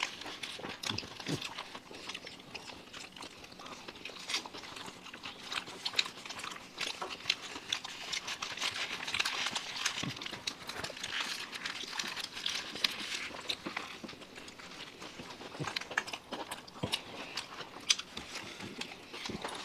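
Several people chewing and eating egg rolls, with many small, irregular wet clicks and smacks.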